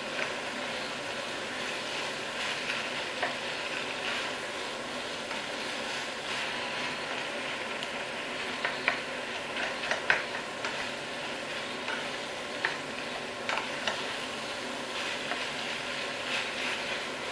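Minced meat and mushrooms sizzling steadily in a frying pan, with a spoon stirring and a few sharp taps and scrapes against the pan, clustered around the middle.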